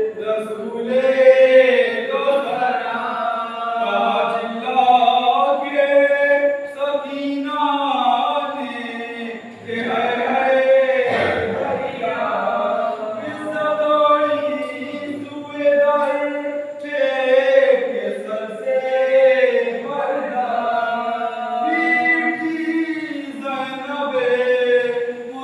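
A group of voices chanting a noha, a Shia mourning lament of the kind recited at majlis and matam, in unison in long rising and falling phrases.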